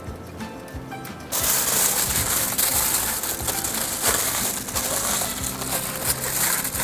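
Aluminium foil being crinkled and folded by hand to wrap a rack of smoked pork ribs. The crackling starts about a second in and keeps going.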